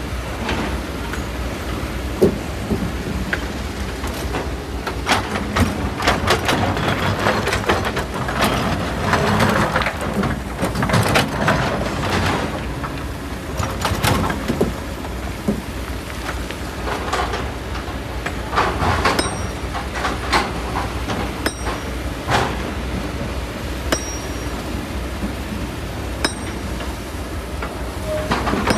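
Kobelco SK200 excavator's engine running steadily while stones and sand clatter and knock irregularly as the machine works loose volcanic rock.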